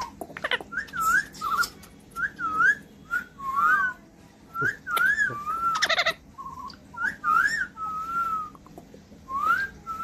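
Pet parakeet whistling: a string of short warbling whistled phrases that swoop up and down, with a few brief harsh squawk-like sounds between them.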